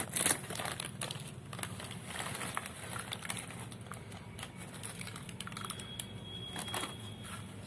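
Crinkling of a plastic snack packet as puffed corn snack rings are tipped out of it onto a plate, with scattered light clicks of the pieces landing and being moved about. The crinkling is loudest at the very start.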